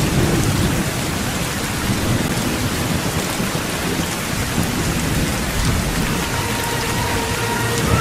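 Heavy rain pouring down steadily, with thunder rumbling low underneath.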